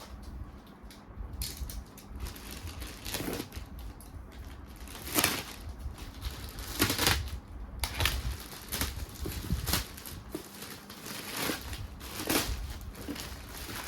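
Cardboard box and its packing being opened by hand: irregular rustling and crinkling with several louder crunches, the strongest about five and seven seconds in.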